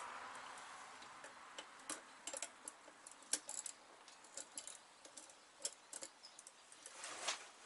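Irregular small metallic clicks and taps from a steel brake hard line and a handheld tube bender being handled and set for a bend. A soft hiss fades away in the first second or two.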